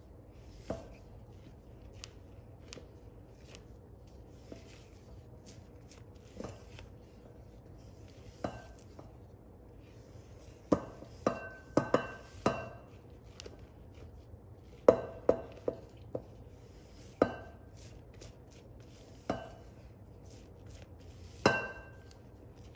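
Spatula knocking and scraping against a mixing bowl while folding macaron batter (macaronage), in irregular strokes, some in quick groups of two or three, several followed by a brief ring from the bowl.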